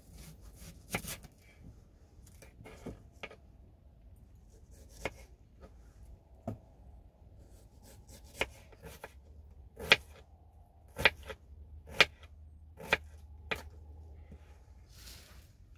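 Kitchen knife chopping an onion on a wooden cutting board: irregular sharp knocks of the blade on the board, a few scattered strokes at first, then louder chops about a second apart in the second half.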